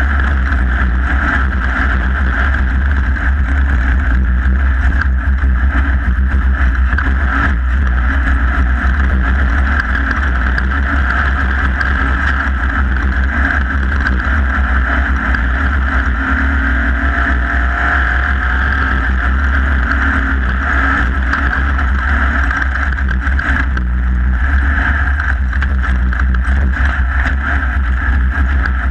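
Off-road race vehicle's engine running at speed, heard from on board: a loud, steady drone with a deep rumble underneath.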